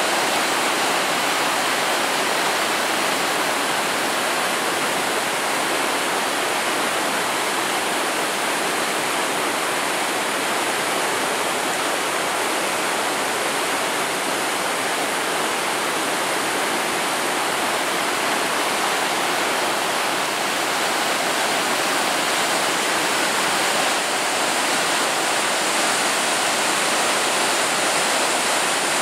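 A flood-swollen river pouring over a low weir, a loud, steady rush of churning water with no let-up.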